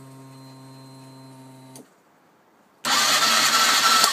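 Cold start of a 2009 Husqvarna TE450 fuel-injected single-cylinder dirt bike: a steady electric hum, the EFI fuel pump priming, stops about two seconds in. About a second later the electric starter begins cranking the engine over loudly.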